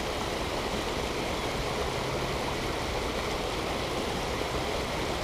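Steady rushing and splashing of a small waterfall pouring into a lake.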